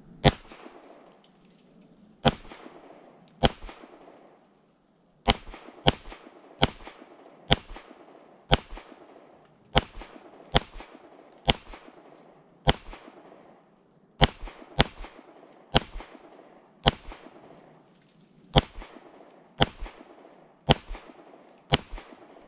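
9mm Springfield Armory Prodigy pistol firing about twenty single shots at a slow, steady pace of roughly one a second, with a brief pause about four seconds in.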